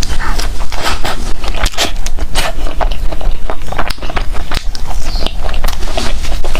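Close-miked chewing of bread, loud, with many quick irregular clicks and crackles from the mouth.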